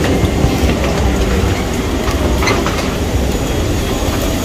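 Steady low rumble of a parked airliner's cabin and doorway air handling, with a few light clicks and knocks from passengers disembarking.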